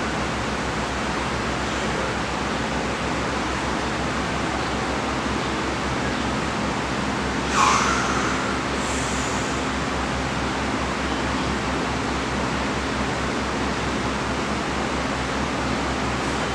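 Steady rushing noise with a low hum underneath, like a fan or air handler running, and one short sharp sound about halfway through.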